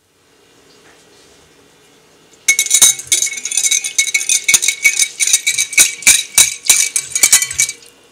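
Wire balloon whisk beating a liquid in a glass bowl, its wires rattling and clinking rapidly against the glass. The whisking starts about two and a half seconds in and stops shortly before the end.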